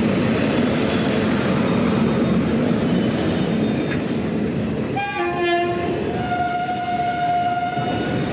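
Freight train of tank wagons passing close by: the steady rumble and rattle of wagon wheels on the rails. About five seconds in, a long steady tone joins in, at several pitches at first, and holds for about three seconds.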